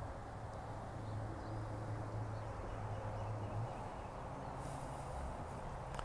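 Quiet outdoor background: a steady low hum that drops away about three and a half seconds in, under a faint even hiss, with no distinct events.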